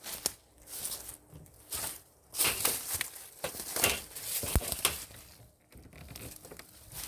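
Footsteps crunching and crackling over storm debris, in uneven steps about one every half second to second.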